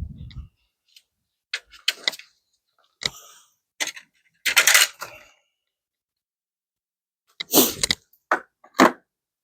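Scattered clicks, knocks and short scraping rattles from hand work on a car's bodywork, with silent gaps between; the longest, loudest scrape comes about halfway through and another near the end.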